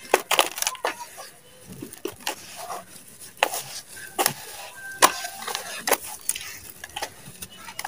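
Hands crushing and crumbling lumps of dry mud: irregular sharp crunches and crackles, with gritty rustling of dirt falling between them. The loudest crunch comes about five seconds in.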